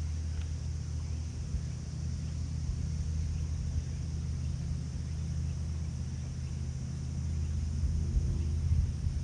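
Strong wind buffeting the microphone: a steady low rumble, gusting harder near the end.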